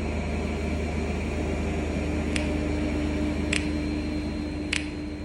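An electric machine running with a steady hum and drone, with a sharp tick about every 1.2 seconds.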